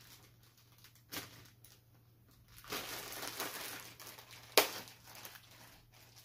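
Plastic packaging crinkling and rustling as it is cut open, with a sharp click about a second in and a louder snap later on.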